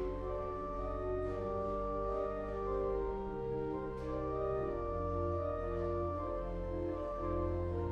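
Church organ playing slow, held chords over a low pedal bass, the chords changing about once a second.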